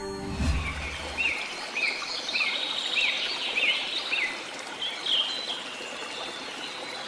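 Birds chirping over the steady rush of running water, like a stream. One bird repeats a short rising-and-falling chirp about every half second for a few seconds, with a few more calls after.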